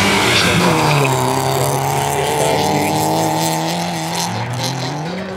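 Hatchback rally car's engine under hard driving. The revs drop about half a second in, hold steady, then climb again near the end as it accelerates out of the turn.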